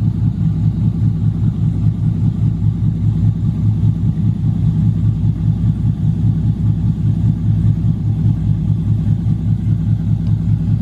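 Chevrolet Camaro SS's 6.2-litre V8 idling steadily, a low rumble with a regular throb.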